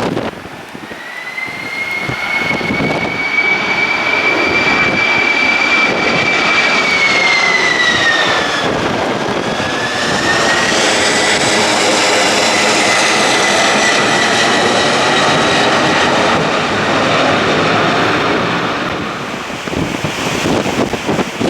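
Jet airliner passing close by on a go-around. A high engine whine holds steady, drops in pitch about eight seconds in as the plane goes past, then loud jet engine noise follows and fades away near the end.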